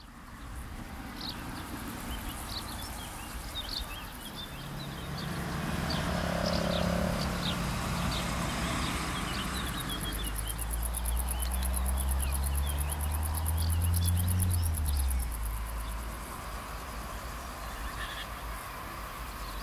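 Summer field ambience: insects chirping and buzzing, with bird calls. A low engine drone builds from about five seconds in, is loudest just before it stops at about fifteen seconds.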